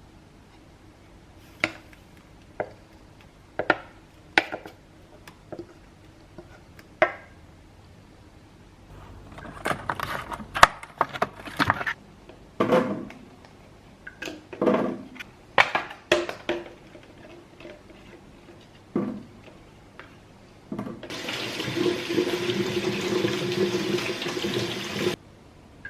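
Kitchen utensils and containers being handled, a run of scattered knocks and clicks that comes thicker in the middle, then liquid running steadily for about four seconds, from a tap or poured into a pot, stopping suddenly near the end.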